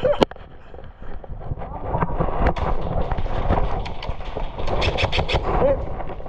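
Footsteps and rustling of an airsoft player moving with a body-worn camera, with rumble on the microphone. There is one sharp crack just after the start and a quick string of sharp clicks about five seconds in.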